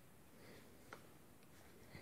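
Near silence with two faint clicks, from the plastic housing halves of a cordless SDS drill being handled and pressed together.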